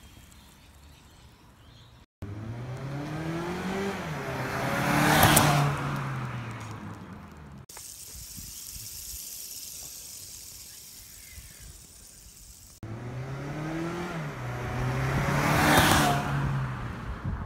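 A car drives over fidget spinners lying on the road, twice. Each time the engine pitch rises, then drops and holds as the car pulls closer, with the loudest moment a sharp peak as it passes over the spinner.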